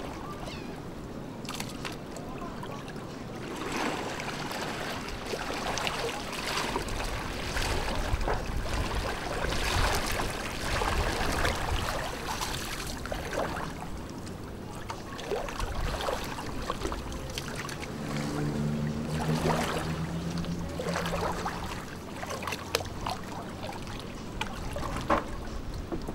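Water splashing and sloshing in uneven bursts as a person wades through shallow water and pushes an outrigger canoe along.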